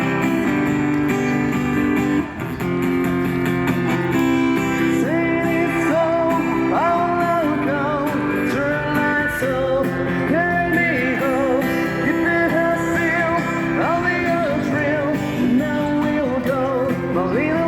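Live street music: guitar accompaniment with a singer's melody, wavering with vibrato, coming in about five seconds in.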